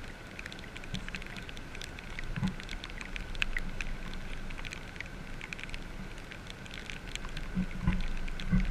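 Light rain pattering close to the microphone in irregular sharp ticks, with a few dull low bumps, the loudest near the end.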